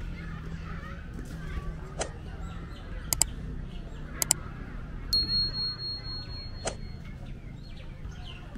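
Market ambience: a low murmur of voices and background rumble, broken by a few sharp clicks, some in quick pairs. A high steady tone sounds for about two seconds around the middle, and faint short chirps come near the end.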